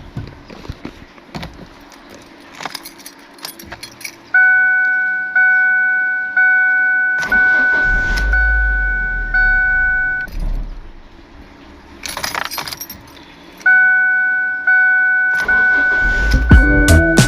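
Keys jangling, then a car's warning chime dinging about once a second for several seconds. It pauses and starts again near the end.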